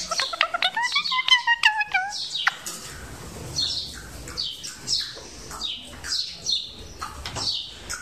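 Indian ringneck parakeet calling at its mirror reflection: a fast run of pitched chattering notes that climbs in pitch for about two and a half seconds, then a string of short, high chirps that slide downward, about one to two a second.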